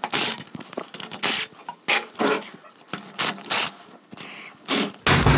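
Short, sharp metallic clicks and scrapes as the bolts on a PowerGlide transmission's rear support are worked loose with a socket and extension. Near the end, a cordless impact wrench runs in a short burst.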